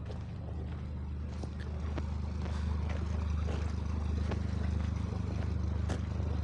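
Narrowboat engine running with a steady low throb as the boat motors along the canal, growing a little louder over the first few seconds.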